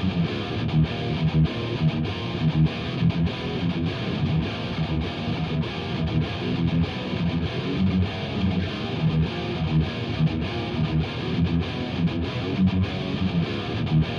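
Background music with strummed, distorted electric guitar and a steady beat.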